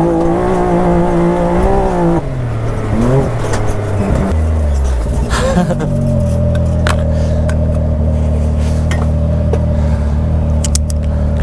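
Off-road vehicle engine revving, its pitch rising and falling several times. About five seconds in it drops to a steady idle, with a few light clicks over it.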